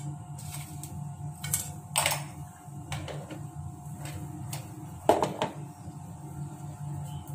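Tempering seeds (mustard seeds and split lentils) frying in hot oil in a nonstick wok, giving a few sharp pops at uneven intervals, the loudest about five seconds in.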